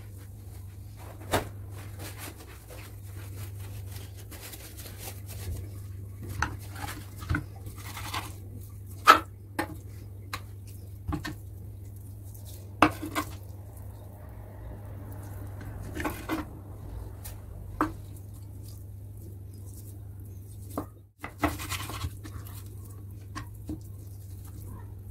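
Scattered clinks and knocks of dishes and utensils being handled in a kitchen, over a low steady hum.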